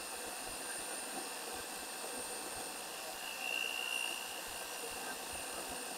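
Electric motor of a homemade cylinder-boring rig running steadily with a high whine while boring out a Honda Dio scooter cylinder. The whine swells briefly a little past the middle.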